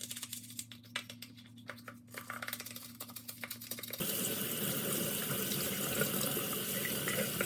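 A cleaning brush scrubbing a washing machine's lint filter in short, irregular strokes; about four seconds in, a tap starts running steadily.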